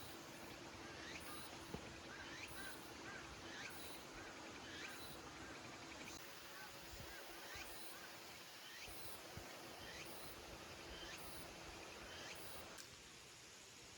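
Faint animal calls: short rising calls repeated about every second or so, over a high pulsing chirring.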